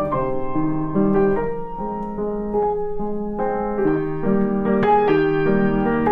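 Background piano music: a gentle melody over chords with notes changing about every half second.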